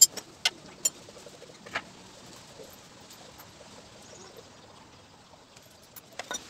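Sharp metallic clicks and clinks of steel bolts and small parts being handled, several in the first two seconds and a few more near the end.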